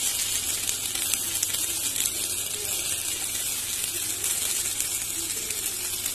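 Paneer tikka skewers sizzling in ghee in a frying pan, a steady hiss with small crackles.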